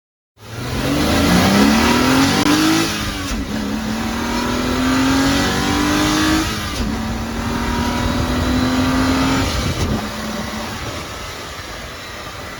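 Porsche Boxster S flat-six engine accelerating hard through the gears: the engine note climbs, drops at a gear change, and climbs again three times over, then eases off and fades.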